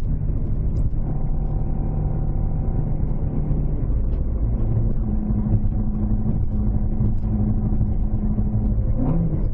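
AE86 Trueno's 5-valve 4A-GE engine on Weber 50 mm carburettors, running under way at fairly steady revs. The pitch steps up about five seconds in, with a brief rise near the end.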